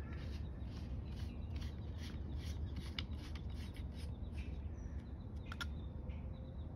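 Plastic pump head being screwed back onto a plastic shampoo bottle: faint plastic rubbing with a couple of sharp clicks, over a steady low rumble and insects chirping.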